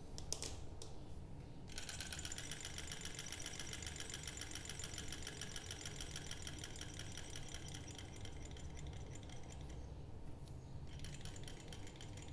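Small model Stirling engine running: a fast, even mechanical clatter starts about two seconds in and stops about two seconds before the end, the engine proving stubborn to keep going.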